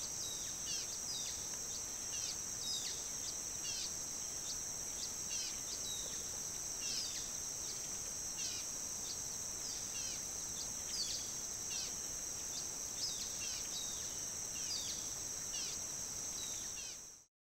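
Tropical rainforest ambience: a steady high insect drone with many short, quick, falling bird chirps over it, cutting off abruptly near the end.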